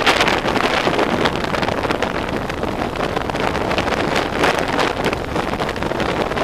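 Wind rushing and buffeting over the bare microphone of a helmet-mounted camera on a moving motorcycle, a loud, steady rush with uneven gusts and vehicle noise underneath.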